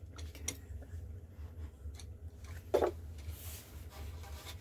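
Faint handling sounds of a PVC-pipe barrel being moved over a wooden model gun: a few light clicks and taps and one louder short sound about three seconds in, over a steady low hum.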